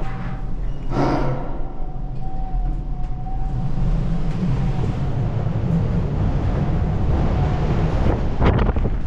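Strong gusty wind buffeting the microphone in a low, steady rumble, with a brief surge about a second in.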